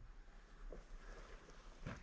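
Near silence: faint hiss with two soft knocks, the second and sharper one near the end.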